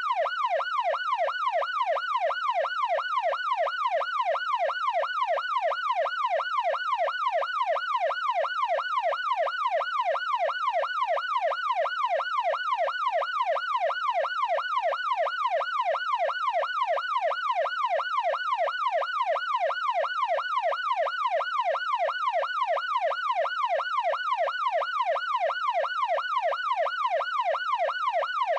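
Electronic police siren in its fast yelp pattern: one wailing tone sweeping up and down about two and a half times a second, steady and unbroken.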